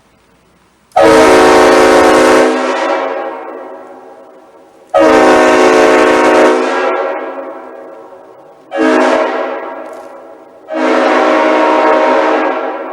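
Multi-chime locomotive air horn blown in four loud blasts: three of about a second and a half and one shorter third blast. Each chord fades away over a second or two after it cuts off.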